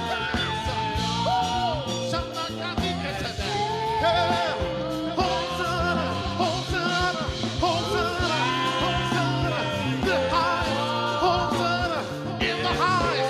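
Gospel worship song: singing over band accompaniment with a steady beat.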